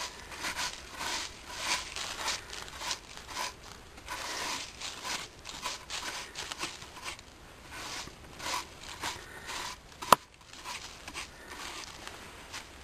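Irregular crinkling and rustling of dry material, with one sharp click about ten seconds in.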